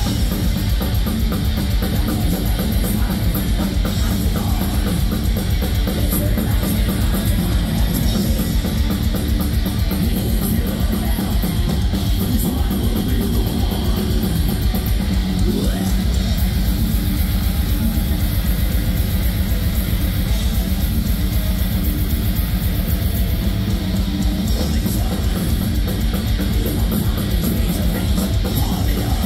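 Black metal band playing live: distorted guitars and bass over a drum kit with dense, fast drumming.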